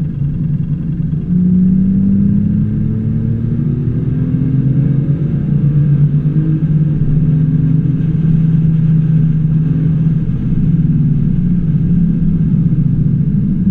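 Porsche 997 GT3 3.8's flat-six engine heard from inside the cabin, accelerating out of a corner: its pitch climbs from about a second in until about halfway, then it runs steadily at speed.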